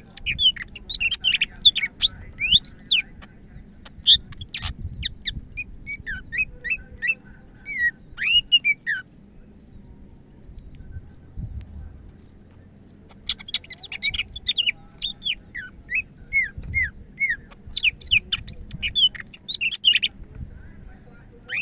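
Green leafbird (cucak ijo) singing energetically: rapid runs of sharp chirps and slurred whistled notes in two long bouts, with a pause of a few seconds between them.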